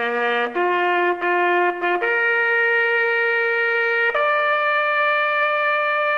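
A horn or trumpet playing a slow phrase of long held notes. It steps to a new pitch about half a second, two seconds and four seconds in, and holds the last note to the end.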